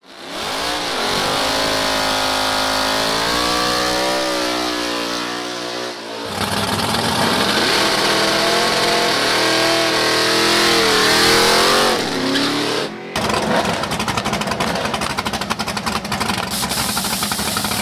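Drag-race car engines revving hard, their pitch climbing and falling, in separate clips cut together twice. The last few seconds are a choppy, fast-pulsing engine sound.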